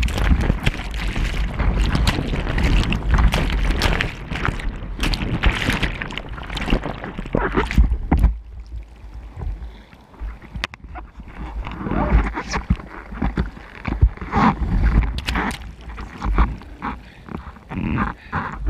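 Churning whitewash of a broken wave washing over a bodyboard's camera, a dense rushing of water and bubbles with many splashes. After about eight seconds it eases to quieter foam with scattered splashes.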